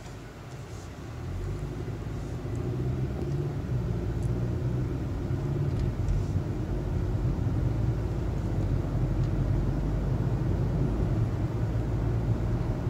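Car engine and road rumble heard from inside the cabin while driving, growing louder over the first couple of seconds and then holding steady.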